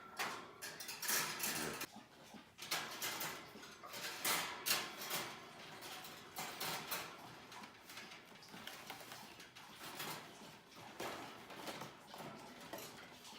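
Irregular rustling, scraping and light clattering as budgies are coaxed out of their carrier and into a wire cage, the birds shuffling about among the handling noises.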